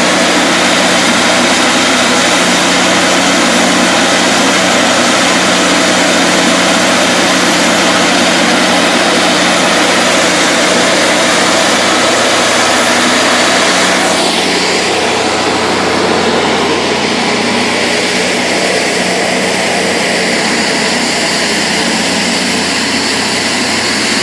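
Hud-Son Oscar 52 portable bandsaw mill running loud and steady, its engine droning while the band blade saws through an oak log. About two-thirds of the way through, the sound drops slightly and loses some of its hiss.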